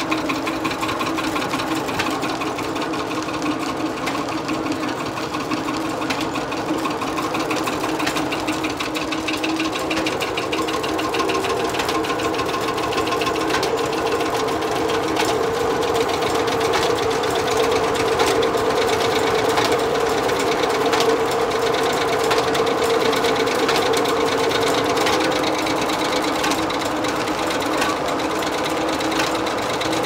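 Steam-powered sawmill running: the flat drive belts and pulleys turn with a fast, even clatter over a steady hum, and a stronger tone swells from about ten seconds in and eases off a few seconds before the end.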